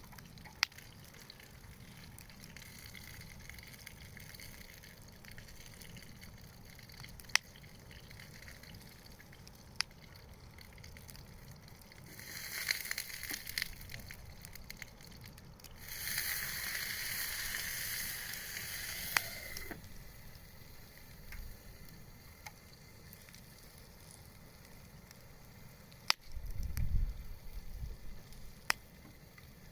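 Wood bonfire burning: a steady low crackle with a few sharp single pops, and two stretches of hissing a few seconds long about twelve and sixteen seconds in. A low rumble comes in near the end.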